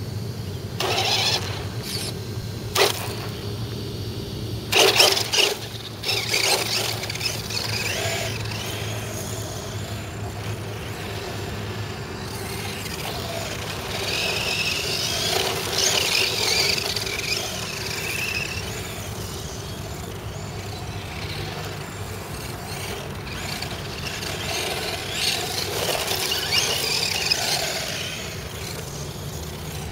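Thunder Tiger Jackal 1/10-scale electric 4WD RC buggy driving on loose dirt, its electric motor whining and swelling louder twice as it speeds up. A few short, sharp noisy bursts come in the first few seconds.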